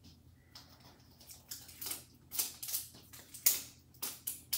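Thin plastic wrapping being picked at and peeled off a toy surprise ball, in irregular crinkles and rustles, with a few sharper crackles in the second half.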